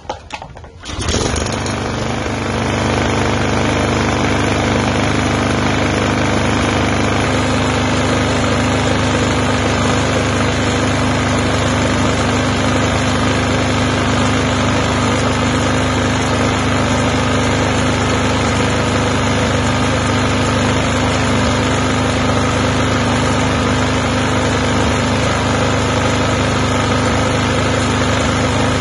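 Toro TimeMaster mower's engine starts about a second in, then runs steadily. The owner suspects a blown head gasket, because the engine has been burning oil and blowing it out through the breather tube.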